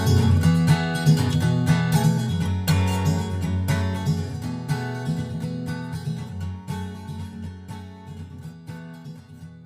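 Background music with strummed guitar, fading out gradually.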